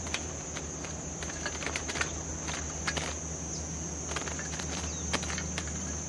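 A steady high-pitched insect drone, with scattered light clicks and taps among it.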